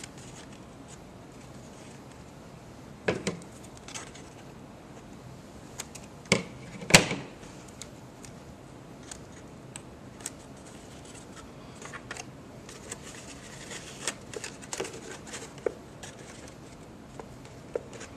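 Paper and card being handled at close range: scattered rustles, crinkles and light taps as thin paper strips are bent over a paper canoe hull and pressed into place by hand. The sharpest taps come about three and seven seconds in.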